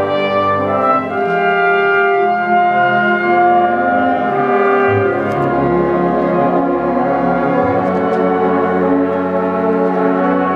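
Concert band playing a film-score arrangement, with brass carrying long held chords over low bass notes that change every few seconds.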